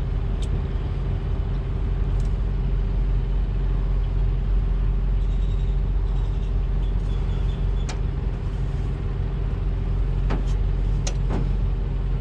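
A nearby engine idling with a steady low rumble and an even hum, with about six short sharp clicks spread through it.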